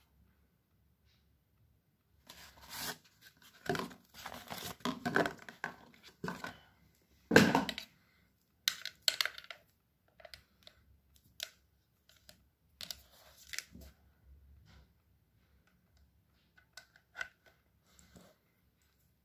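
A small cardboard accessory box being opened and emptied by hand: rustling and tearing of card and packaging, with the loudest scrape about seven seconds in. After that come scattered light rustles and clicks as the charging cable is handled and plugged into the massage gun.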